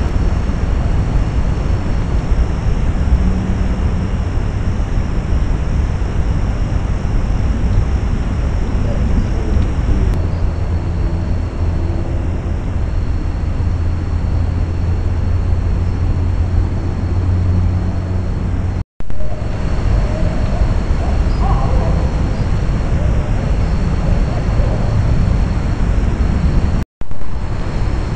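Night ambience picked up by a trail camera's microphone: a steady loud low rumble and hiss under a thin, high continuous trill. The sound cuts out abruptly twice, about two-thirds of the way in and near the end.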